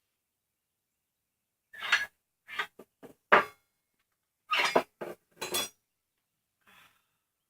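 Metal parts of a Ryobi miter saw clanking and rattling in a string of short, irregular knocks as it is pushed and jiggled while still held by its lock.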